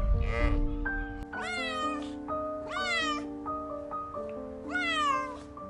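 Domestic cat meowing three times, each meow rising then falling in pitch, over background music of sustained notes. A shorter call with a low rumble comes right at the start.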